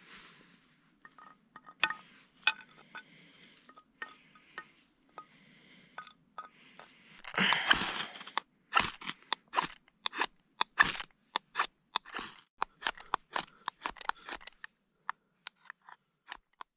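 Dry twigs and kindling crackling and snapping while a small campfire is being lit: scattered sharp clicks at first, a louder rough rush about seven and a half seconds in, then a quick irregular run of crisp snaps that thins out near the end.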